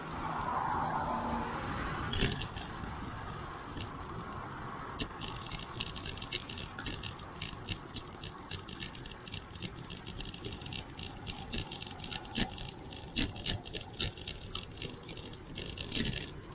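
Bicycle freewheel ticking rapidly as the rider coasts, starting about five seconds in, over steady tyre and wind noise with road traffic going by.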